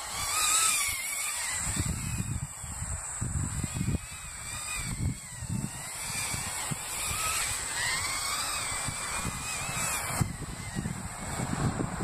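Micro 130 mm racing quadcopter with 1306 brushless motors in flight, its high motor whine rising and falling in pitch as the throttle changes. Irregular low rumble of wind on the microphone underneath.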